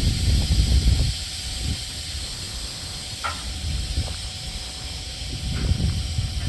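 Freight train of covered hopper cars rolling slowly past: a low rumble of wheels on rail under a steady high hiss, with a brief squeal about three seconds in and a few light knocks.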